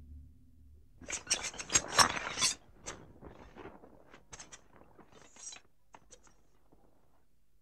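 A dense burst of sharp, mechanical-sounding clicks and rattles, loudest about two seconds in, thinning to scattered single clicks that stop after about six seconds, part of an electroacoustic tape soundtrack.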